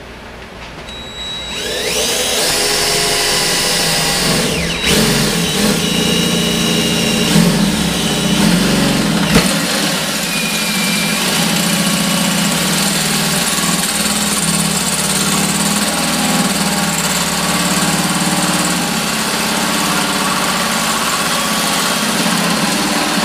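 Drill spinning a 1-1/4-inch hole saw as it cuts into a stainless steel sink deck: the motor runs steadily under load, with high metal-on-metal squealing tones that come and go. The drill starts up about a second and a half in.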